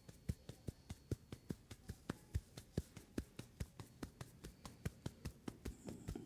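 Hands tapping rapidly on a person's head in a head massage, about six or seven light taps a second.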